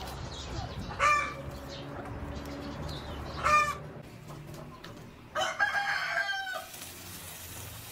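Free-ranging chickens calling: two short, loud calls about one and three and a half seconds in, then a longer call of a bit over a second, a rooster crowing.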